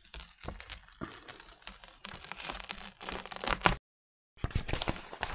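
A sheet of paper being peeled off a paint-covered gel printing plate, crackling and rustling as it pulls free of the tacky paint. The sound cuts out for about half a second near four seconds in, then more rustling follows.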